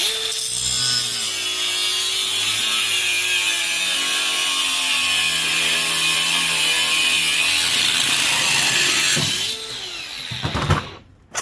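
Angle grinder cutting the pin off an electric fan motor: a loud, steady grinding hiss whose motor pitch sags slowly as it bites into the metal. About nine and a half seconds in it stops and winds down, followed by a few clanks.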